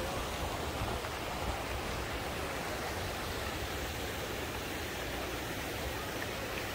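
Arcing fountain jets splashing into a pool: a steady, even rush of falling water.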